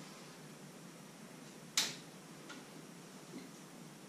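DSLR camera shutter firing once with a sharp click a little under halfway through, followed by a couple of faint ticks. A steady low hum runs beneath.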